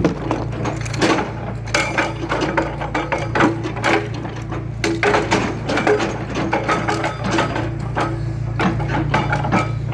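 Hitachi Zaxis 210LC excavator's diesel engine running steadily under a dense series of irregular knocks and cracks as its bucket breaks up asphalt.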